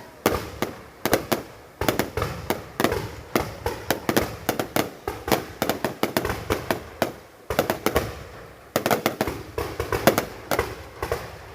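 Fireworks going off in a dense, irregular string of sharp bangs and pops that overlap one another, with two brief lulls past the middle.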